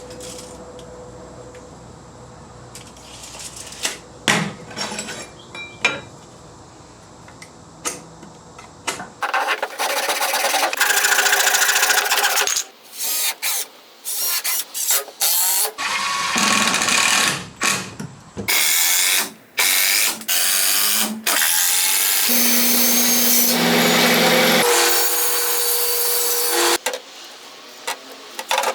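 Power tool running in a series of loud bursts that start and stop abruptly, a motor tone under some of them, after a few scattered clicks and knocks from hand work.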